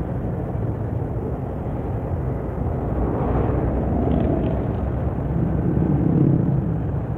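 Steady low rumble of road traffic with a Mercedes-Benz coach running close ahead, swelling a little about three seconds in and again near the end.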